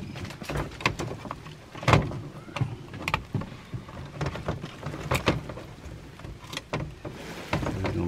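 Irregular clicks, taps and rattles of a plastic HVAC zone control panel and its thermostat wires being handled and fitted, over a low steady hum.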